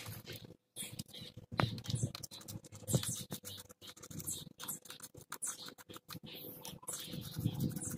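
Irregular scratching and rubbing, with many small clicks, as a folded strip of abrasive paper is worked against the metal bulb-socket holes of a Suzuki Mehran instrument-cluster circuit board.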